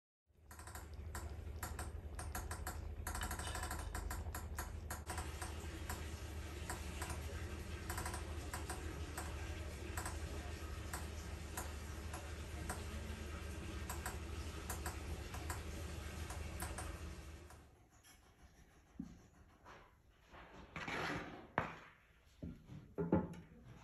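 Thick spinach dal simmering in a clay pot over a gas flame: many small bubbles popping and clicking over a steady low hum. It cuts off abruptly after about seventeen seconds, leaving faint scattered knocks.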